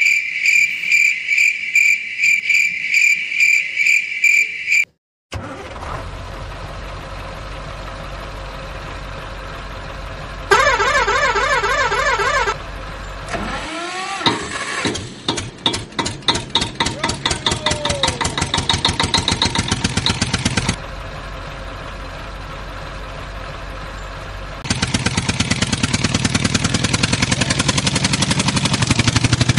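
A string of dubbed sound effects: a high, rapidly repeated chirping, then a steady engine hum, a warbling siren-like tone for about two seconds, an engine cranking and catching with a chugging rhythm, and a louder engine running steadily near the end.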